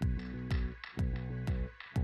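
Background music with a steady beat, about two beats a second, over sustained held notes.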